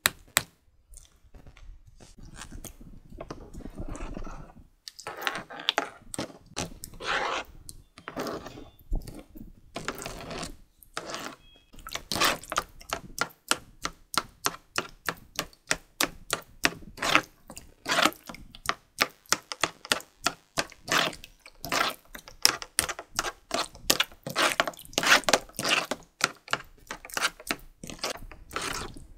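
Plastic spoons, a fork and a knife clicking and scraping against a ceramic bowl while stirring and cutting through soft black jelly pudding. The taps are sparse at first and come several a second from about twelve seconds in.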